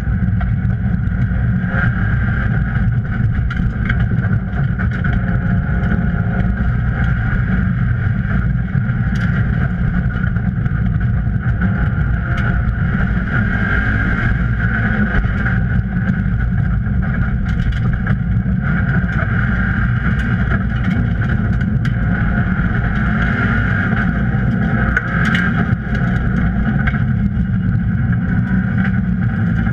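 Subaru rally car's engine running steadily under way, heard from inside the stripped, roll-caged cabin.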